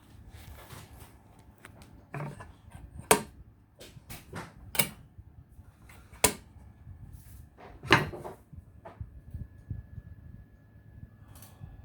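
A series of sharp knocks and clicks of hard objects being handled, spaced a second or two apart, with a faint steady high tone in the second half.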